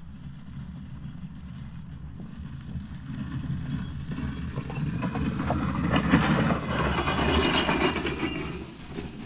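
A heavy vehicle passing with a low rumble, metallic clatter and a high squeal. It builds to its loudest about six to eight seconds in, then fades.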